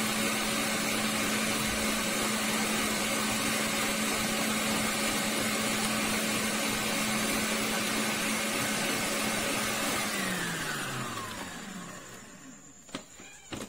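Electric stand mixer running steadily, its wire whisk whipping non-dairy cream in a stainless steel bowl. About ten seconds in it is switched off and the motor whine falls in pitch as it winds down, followed by a couple of light clicks near the end.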